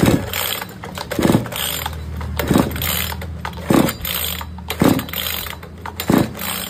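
Pull-starter of a Flymax 62cc two-stroke chainsaw being yanked over and over on full choke: about six pulls a little over a second apart, each a short rising whir of the recoil cord and starter. The engine never fires; the saw fails to start even on choke.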